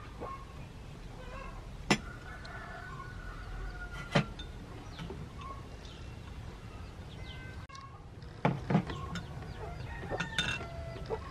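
Chickens clucking in short scattered calls, with a few sharp knocks, two of them close together late on.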